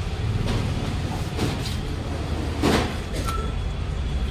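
Large knife slicing through a big fish's flesh on a cutting board: a few short cuts, the loudest about two and a half seconds in, over a steady low rumble.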